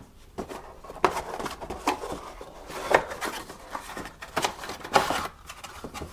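Irregular light knocks, taps and scuffs of items being handled and lifted out of a product box, with the sharpest knocks about three and five seconds in.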